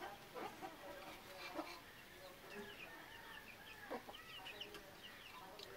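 Domestic chickens clucking faintly, with short high chirps scattered through the middle and later part.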